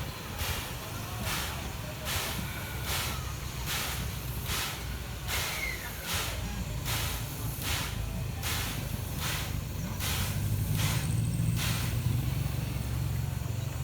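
C11 steam tank locomotive moving slowly during shunting, its exhaust chuffing in an even rhythm of a little more than one chuff a second over a low running rumble. The rumble grows louder about ten seconds in.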